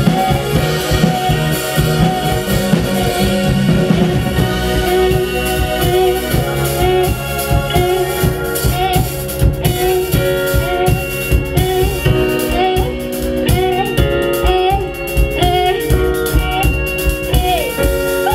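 Live rock band playing an instrumental passage: a lead melody with bending notes over drums and bass.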